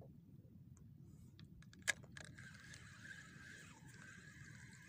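A single sharp click about two seconds in, then a steady, slightly wavering whir: a Ryobi Zeus 3000 spinning reel being cranked to retrieve the lure.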